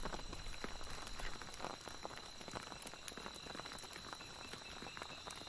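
Crickets calling in a steady high-pitched drone, with scattered light ticks and taps over it.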